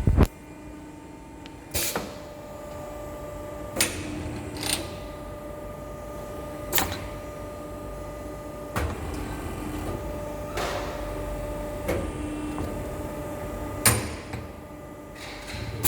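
CNC corner crimping machine for aluminium window frames running its automatic cycle: about ten sharp mechanical clunks, one to two seconds apart, over a steady motor hum.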